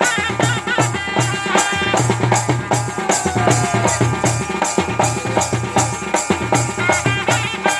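Kodava valaga folk music: drums keeping a fast, even beat, about four strokes a second, under a wavering wind-instrument melody.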